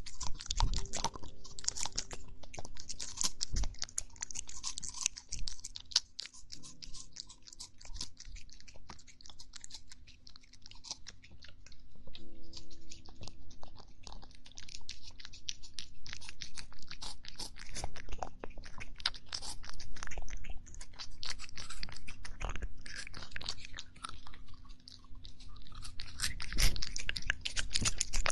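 A cat chewing and crunching food: a steady, irregular run of small crisp crunches.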